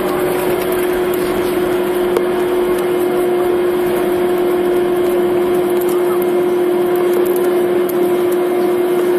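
Cabin noise of a Tu-204 airliner taxiing after landing: a steady wide rush from its jet engines with an unbroken tone running through it, heard from inside the passenger cabin.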